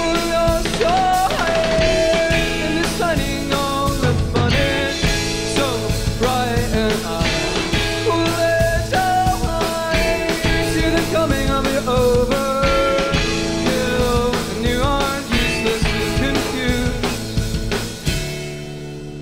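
Live rock band playing: a drum kit beating steadily under electric guitars with a bending melodic line. Near the end the drums stop and held guitar chords ring on, quieter.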